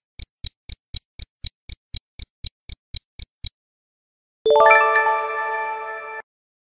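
Stopwatch ticking sound effect, about four ticks a second, stopping about three and a half seconds in. After a second's pause a ringing chime sounds and fades, the correct-answer ding of the quiz, then cuts off.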